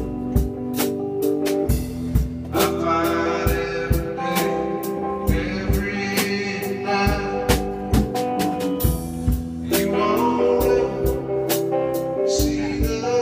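Band playing a blues-flavoured song on drum kit and guitar, with the drums keeping a steady beat under sustained guitar notes.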